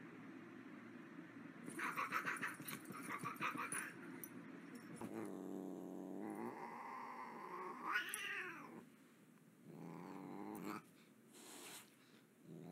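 Scuffling and rustling for the first few seconds, then a Siamese cat growling and yowling in three drawn-out, wavering calls, the middle one rising in pitch, with a brief hissing noise near the end: an annoyed cat warning off a dog.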